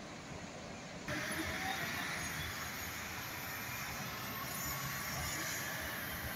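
Distant Marmaray electric commuter train approaching along the track: a steady hiss of wheel-on-rail noise that steps up about a second in.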